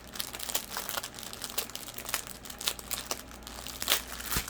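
Small plastic bags of diamond-painting drills crinkling as they are handled and sorted: a dense, irregular crackle, with one sharper crinkle just before the end.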